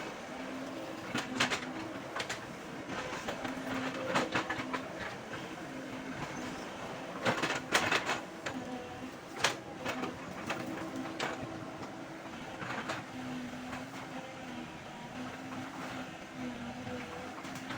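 Excavator engine running under working load with a wavering whine, and sharp cracks and knocks scattered throughout, several close together about halfway through.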